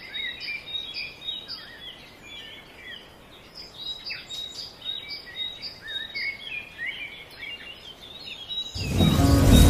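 Birds chirping and calling, many short rising and falling chirps with a repeated high note. Near the end loud music cuts in over them.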